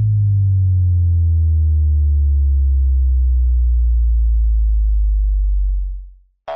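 Deep synthesized drone from an animated logo intro, sliding slowly and steadily down in pitch, then fading out about six seconds in.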